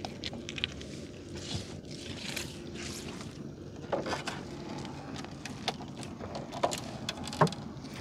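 A small boat engine running steadily, under water splashing and scattered clicks and knocks as a gill net is hauled in.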